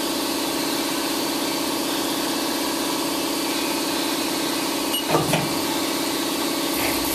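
Steady hum of a powered-up 2002 Haas Mini Mill CNC vertical machining center running idle, with a brief short sound about five seconds in.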